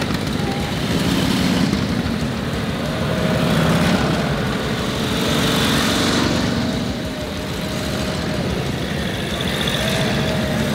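Vintage Harley-Davidson V-twin motorcycles running past at low speed one after another, the engine sound swelling and fading as each bike passes close by.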